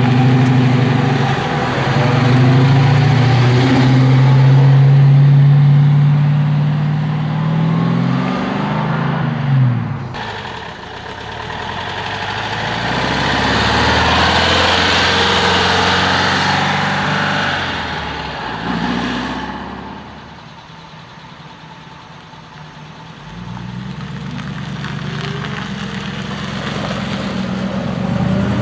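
Classic cars passing one after another. First a Chevrolet Camaro SS's V8 gives a deep, strong rumble that rises in pitch as it pulls away. After an abrupt change about ten seconds in, a Porsche 356's air-cooled flat-four swells and fades as it passes, and near the end another old car's engine grows louder as it approaches.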